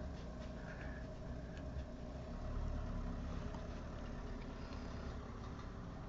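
Steady low rumble of background noise, with a few faint ticks and light rustles over it.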